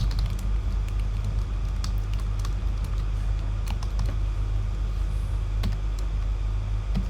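Scattered computer keyboard keystrokes, about eight sharp clicks spread unevenly, over a steady low hum.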